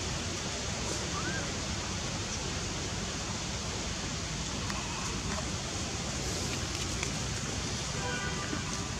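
A steady, even hiss of outdoor background noise at a constant level. It carries a faint short chirp about a second in and a few faint short high tones near the end.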